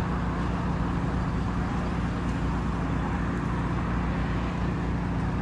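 Steady low hum of a running engine, unchanging throughout, over a faint haze of outdoor noise.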